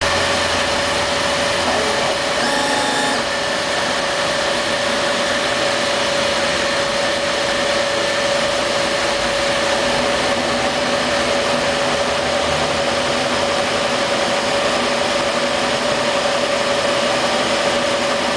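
Laser engraver running while raster-engraving, its head shuttling rapidly back and forth on the gantry: steady machine noise with one constant tone. A brief extra sound comes in about two and a half seconds in.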